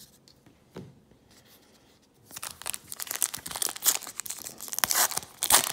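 A 2018 Donruss baseball card pack's foil wrapper being torn open and crinkled by hand. The crackling starts about two seconds in and keeps going in quick, sharp bursts.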